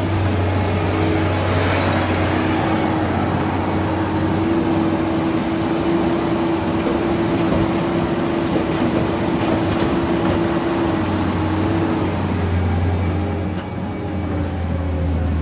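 Skid steer loader's engine running steadily, with a low drone and a steady higher tone that fades about twelve seconds in.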